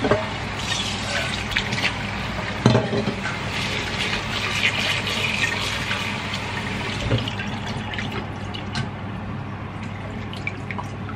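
Kitchen tap running into a stainless steel bowl of lettuce, water splashing as hands swish the leaves, with a few light knocks against the bowl. The running water fades in the last few seconds.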